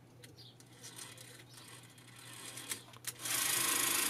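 Clockwork spring of a Krasnogorsk-1 16 mm film camera being wound by its folding key, with faint rubbing and ratchet clicks. About three seconds in, the spring-driven mechanism runs briefly, a loud steady whirring clatter of the film claw and gears, freshly lubricated, that stops abruptly just under a second later.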